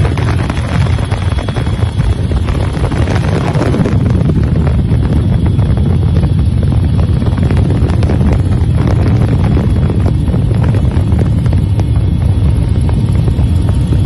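Helicopter noise heard from aboard the aircraft: a loud, steady low drone of engine and rotor with wind buffeting the microphone.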